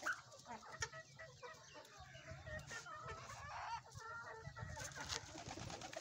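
Chickens and chicks calling in a busy, continuous run of short rising and falling calls, with pigeons among them. A couple of sharp knocks sound at the start and just under a second in.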